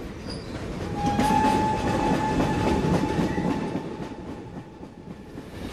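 A train running, with a dense rumble and a long steady high-pitched tone over it from about a second in until near the end; the rumble fades away toward the end.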